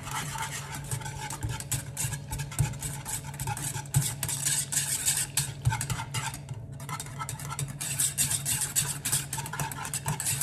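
Wire whisk beating thick chickpea-flour batter in a saucepan: a fast, continuous run of scraping clicks and swishes against the pot, pausing briefly about six and a half seconds in. A steady low hum runs underneath.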